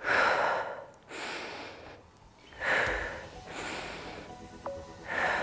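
A woman breathing hard and forcefully through the mouth while lifting a kettlebell in deadlifts, a sharp breath about every second, the loudest at the start. Faint background music plays underneath.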